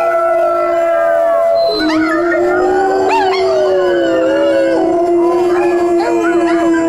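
Several dogs howling together: one long, steady howl held throughout, with other howls sliding up and down in pitch over it, more of them joining about two seconds in.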